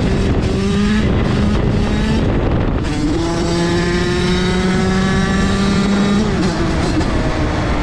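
High-revving small two-stroke motorbike engine held at high revs, with a brief drop in revs about two to three seconds in, then pulling high and steady again before the revs fall away near the end.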